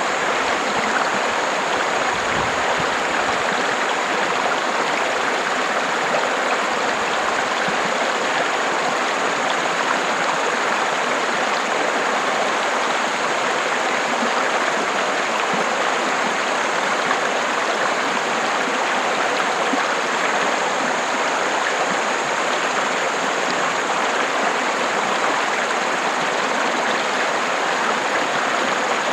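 River water rushing and splashing over rocks, a steady, even roar.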